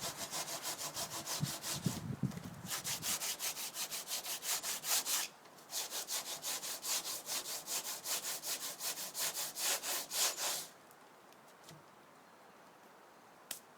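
Sandpaper rubbed back and forth by hand over a fiberglass dodger, in quick, even scraping strokes. The strokes break off briefly about five seconds in and stop about eleven seconds in.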